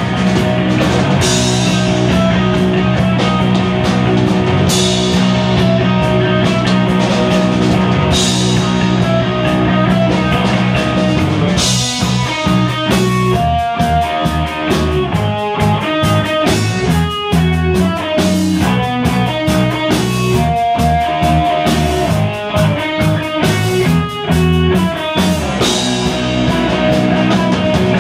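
Live rock band playing loud, with electric guitars and a drum kit. About twelve seconds in, the full sustained sound turns choppier and more broken up, and it fills out again about thirteen seconds later.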